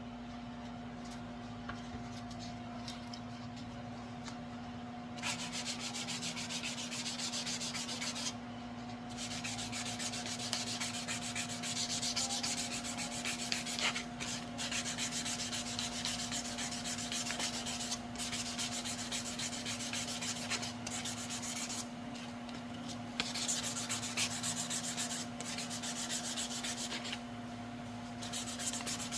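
Sanding the paintwork of a Vespa scooter, in stretches of a few seconds with short pauses, over a steady low hum.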